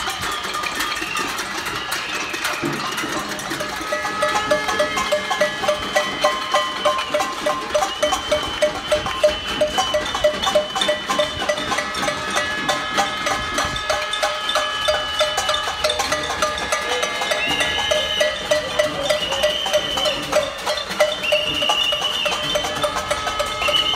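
Many pots and pans being banged in protest: a dense metallic clatter with ringing tones. It grows louder about four seconds in, with stronger beats about twice a second.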